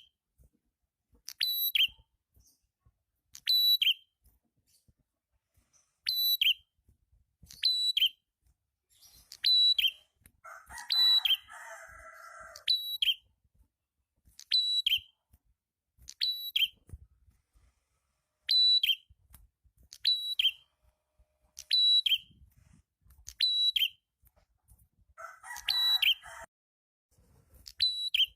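Prenjak kepala merah, a small songbird, calling over and over: short, sharp, high double notes about every one to two seconds. A lower, buzzy chattering run breaks in about eleven seconds in and again near the end.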